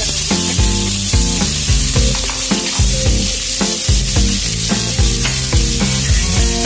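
Chopped onions sizzling in hot oil in a kadhai while a spatula stirs them, a steady frying hiss. Background music with a steady beat plays underneath.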